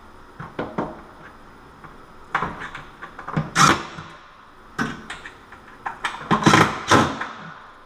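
Sheet-metal knocks and rattles as a stainless range hood is held up under a cabinet and its mounting screws are driven with a cordless drill. The sound comes in several short bursts, the loudest about three and a half seconds in and again around six and a half to seven seconds.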